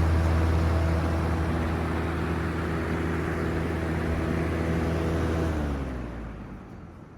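Third-generation Lakewood box fan running on high: steady motor hum under a rush of moving air. About five and a half seconds in the fan is switched off. The hum drops away and the air noise fades as the blades coast down.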